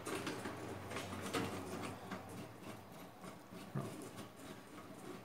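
Faint, scattered clicks and light metallic scraping of a screw being turned by hand screwdriver into the sheet-steel motherboard tray of an old AT computer case.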